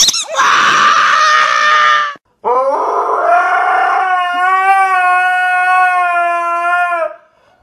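A dog howling: one long call that rises at the start, then holds steady with a slight waver for about four and a half seconds and stops abruptly. Before it, about two seconds of a harsh, noisy sound from a small dog tussling with a stuffed toy.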